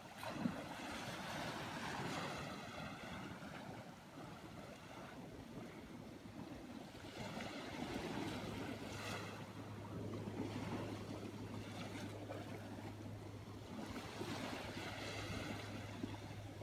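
Small ocean waves breaking and washing up the sand, swelling and ebbing every few seconds.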